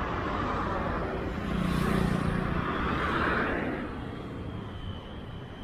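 Highway traffic passing close by: tyre and engine noise from vehicles going past, with one vehicle swelling past about two seconds in, then fading.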